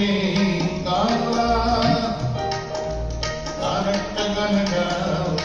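Live performance of a Bengali song: singing over keyboard, guitar and tabla. The notes are held and slide in pitch, with steady drum strokes under them.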